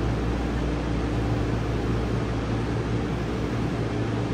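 Subway car standing at a station with its doors open: the steady hum of its air conditioning and onboard electrical equipment, with a few low held tones under an even hiss.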